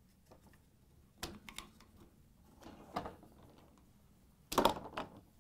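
Sharp plastic clicks and rattles as a flat-blade screwdriver pushes the locking tabs of a dishwasher lower rack's wheel assemblies and they are pulled off the wire rack: a few separate clicks, then a louder cluster of clicks near the end.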